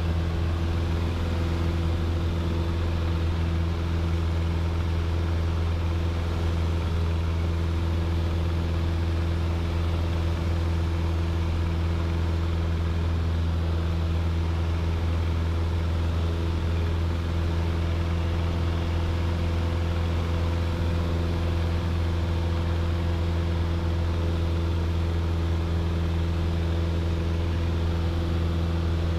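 Piper PA-28 Archer's four-cylinder Lycoming engine and propeller running at steady power, heard inside the cabin as a constant low drone with no change in pitch.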